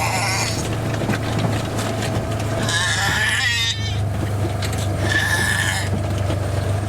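A young girl's wild, high-pitched wavering calls, three of them, made to drive cattle, over the steady hum of a vehicle's engine.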